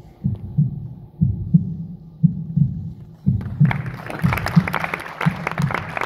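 Heartbeat sound effect: low double thumps, about one pair a second. About three and a half seconds in, audience applause breaks out over it.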